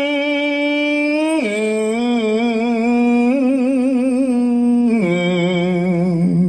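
Khmer smot: a monk's solo chanting voice, unaccompanied, holding long drawn-out notes with a wide vibrato. It steps down in pitch about a second and a half in and again near the end.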